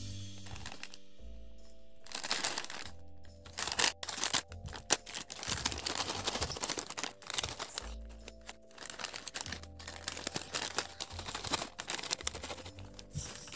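Plastic snack packet of Haldiram's Punjabi Tadka crinkling and rustling as it is handled and opened, and the crisp fried sticks pouring out into a hand, in dense crackly bursts from about two seconds in until near the end. Background music with held notes plays throughout.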